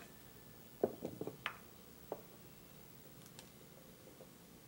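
Several light taps and clicks of a measuring cup against a clay bowl and a glass jar as powdered dried herb is scooped and tipped in, mostly in the first half, with faint ones near the end.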